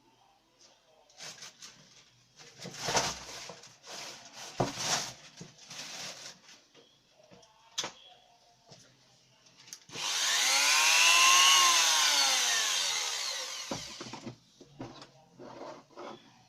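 Handling and rubbing knocks, then a small high-speed rotary tool fitted with a router bit cutting into wood for about four seconds. Its whine rises and then falls in pitch under a rasping cutting noise. A few light knocks follow.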